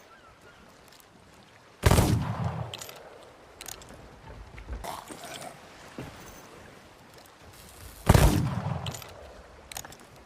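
Double-barrel pistol firing two shots about six seconds apart, each a sharp bang that rings out for about a second, with a few faint clicks in between.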